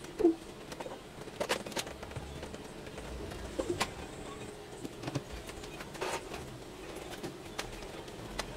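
Scattered light clicks and knocks of plastic as a hand works at the rear of an Epson L120 inkjet printer, about nine in all at irregular intervals, the loudest one just after the start, over a faint steady hum.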